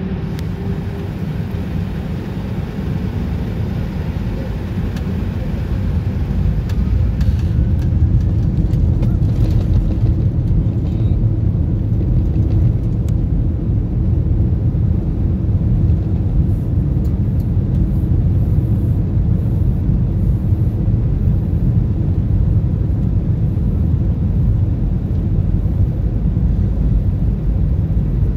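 Jet airliner's engines spooling up to takeoff thrust, heard from inside the cabin. The noise rises over a few seconds, then settles into a steady loud low rumble of engines and wheels on the runway during the takeoff roll.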